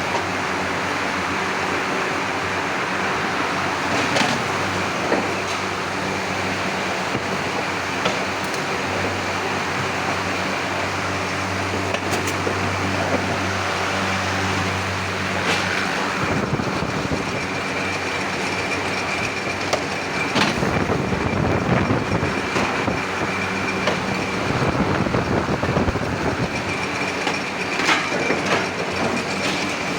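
Steady industrial machinery noise with a constant hum and scattered sharp metallic clanks, rougher and busier about halfway through.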